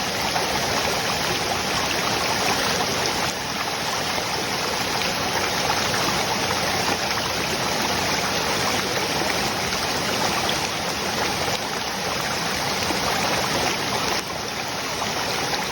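Waterfall and its stream rushing in a steady, even roar of falling water, shifting a little in level a couple of times.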